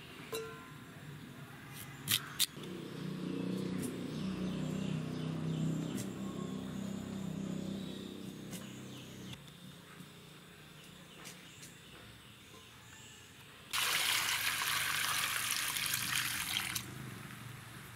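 Water poured from a clay pot into a steel bowl of cut cassava pieces: a loud, even splashing pour of about three seconds, starting and stopping sharply near the end. Earlier, a low drone runs for several seconds.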